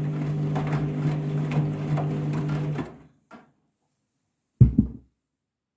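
Candy washing machine's drum motor running with a steady hum during the first rinse, cutting out about three seconds in. A single loud thump follows near the end, then silence.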